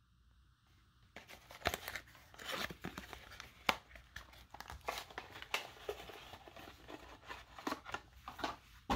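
Cardboard box of football cards being torn open at the bottom and its card packs pulled out: irregular tearing and handling sounds starting about a second in.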